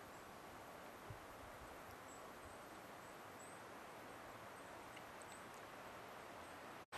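Near silence: faint steady hiss of still forest air, with a few faint, very high bird chirps.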